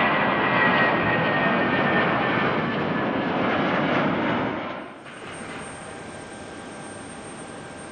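Jet airliner engines running loud, a dense rushing noise with a faint whine in it. About five seconds in it drops abruptly to a much quieter steady background with a thin high tone.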